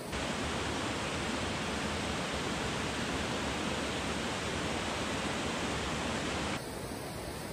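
Small mountain-creek waterfall rushing steadily into a pool, an even splashing roar of falling water. Near the end it drops abruptly to a quieter stream sound.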